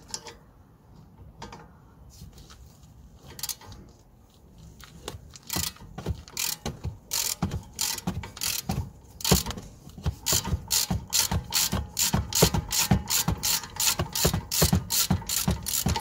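Socket ratchet clicking as it unscrews a 13 mm brake caliper bolt. The strokes come sparsely at first, then fast and regular from about five seconds in, about three a second.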